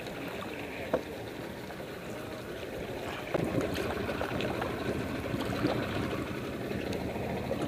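Water trickling and lapping around a canoe as it is paddled, with small splashes from the paddles and a single light knock about a second in.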